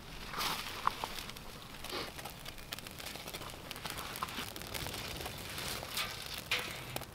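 A freshly lit bundle of dry grass tinder and small twigs crackling with many small, irregular pops as it catches. Dry twigs rustle now and then as they are handled and laid on.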